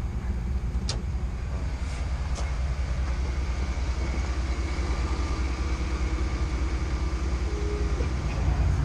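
Engine idling steadily, a low even running sound with a fast pulse.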